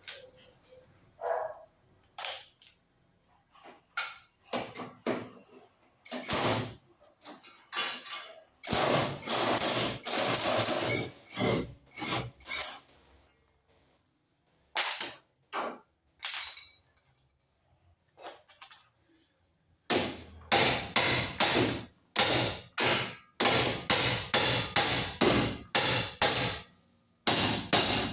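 Hammer blows on metal while the Fiat Uno's axle shaft and wheel bearing are being knocked out. Scattered single strikes and tool clatter come first, then a steady run of blows, two or three a second, near the end.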